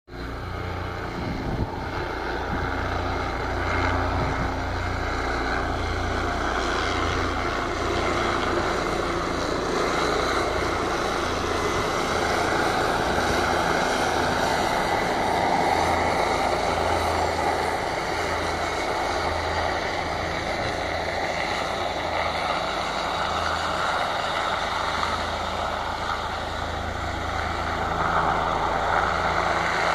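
Bell 407 helicopter's turbine and rotor heard as it approaches to land, a steady, uneven noise over a low rumble that grows slightly louder near the end.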